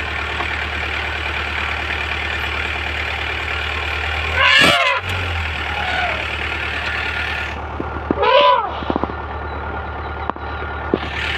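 Vehicle engine idling with a steady low hum, broken by two loud brief cries about four and a half and eight and a half seconds in, each rising and falling in pitch, and a few sharp clicks near the end.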